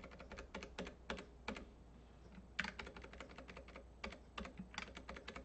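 Typing on a computer keyboard: irregular runs of key clicks, pausing for about a second near the middle before resuming.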